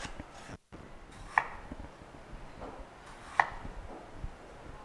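Chef's knife cutting a raw potato on a wooden cutting board: the blade knocks sharply on the board a few times, about two seconds apart.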